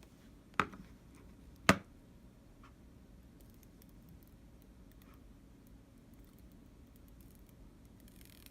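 Two sharp taps about a second apart, then a few faint ticks over a low background hum.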